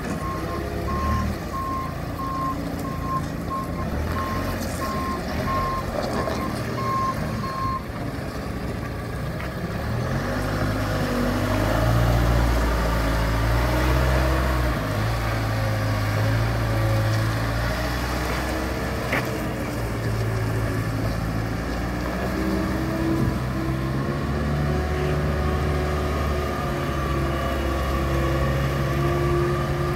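Manitou MT1440 telehandler's diesel engine running as the machine drives, with its reversing alarm beeping about twice a second for the first eight seconds. The engine grows louder from about ten seconds in.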